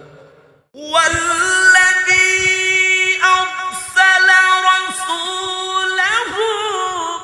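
Quran recitation: a single voice chanting in melodic tajweed style, starting after a short pause about a second in, with long held notes and ornamented turns between them.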